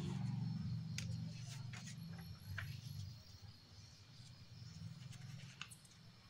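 Paper being folded and creased by hand: a few short sharp crinkles and taps over a low steady hum.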